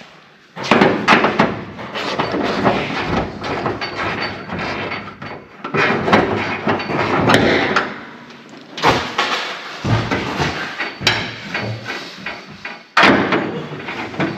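Workshop clatter: a run of knocks, rattles and several sharp bangs as car body parts are handled and worked loose.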